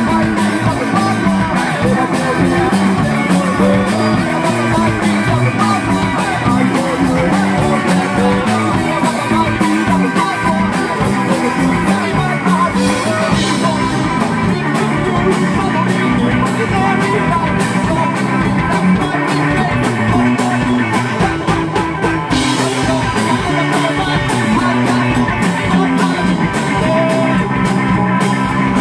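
Rock band playing live: electric bass and drums driving a rock song, with a sung vocal.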